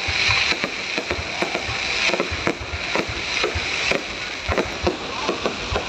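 Fireworks going off: a rapid, irregular string of pops and bangs over a steady crackling hiss.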